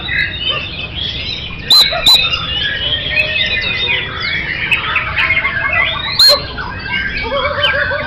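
Many caged songbirds singing at once, a dense overlapping chorus of whistles, trills and chirps. A few very loud, sharp notes stand out about two seconds in and again about six seconds in, and a quick run of low repeated notes comes near the end.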